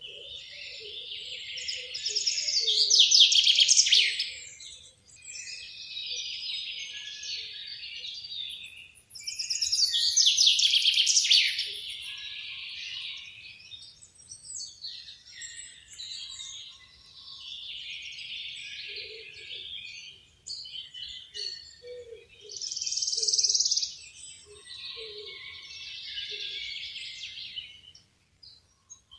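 Several songbirds singing, with overlapping high, warbling phrases. The loudest bursts of song come a few seconds in and again about ten seconds in, with short, faint low notes now and then.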